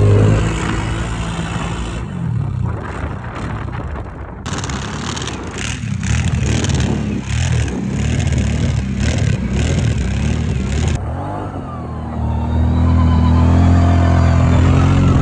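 ATV engine revving hard and unevenly as the quad sits stuck in deep snow with its wheels spinning. A rough hiss and clatter rides over it through the middle, and near the end the engine holds a steady high rev.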